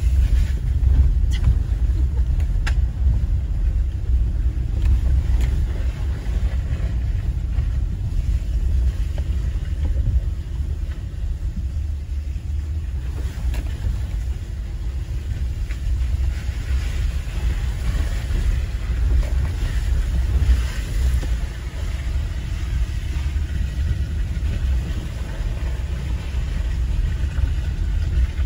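Jeep Gladiator driving slowly over a wet, rutted dirt road, heard from inside the cab: a steady low rumble of engine and tyres, with a few faint ticks near the start.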